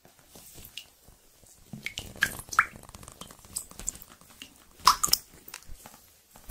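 Sound effects for an animated logo intro: a scatter of short clicks and quick pitched blips, some gliding briefly in pitch, with no steady beat. The loudest cluster comes about five seconds in.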